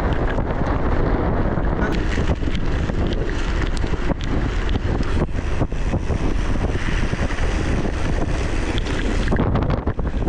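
Strong blizzard wind buffeting the microphone of a moving bicycle rider, loud and unbroken, with scattered sharp ticks through it.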